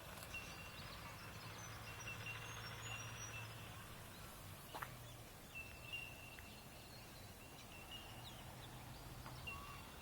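Quiet rural outdoor ambience: a faint thin high note breaks off and returns several times, over a faint low hum that comes and goes.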